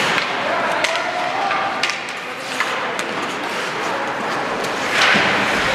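Ice hockey play in a rink: skates scraping the ice and sharp clacks of sticks and puck, several in the first three seconds, over the hum of spectator voices, with a short louder rush of noise about five seconds in.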